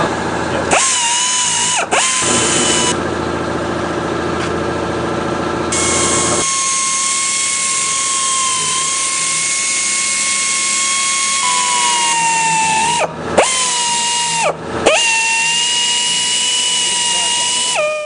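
High-speed power tool running with a steady whine. Its pitch sags briefly about two seconds in and twice near the end, then recovers.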